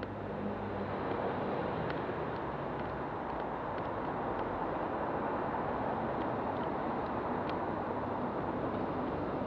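Steady rushing noise of a Brompton folding bicycle rolling over paving: tyre noise and air rushing past, rising a little about a second in and then holding even.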